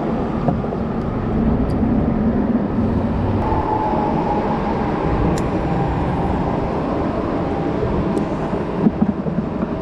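Steady rumble of traffic on the highway bridge overhead, with a faint passing tone in the middle. A few light, sharp clicks, bunched near the end.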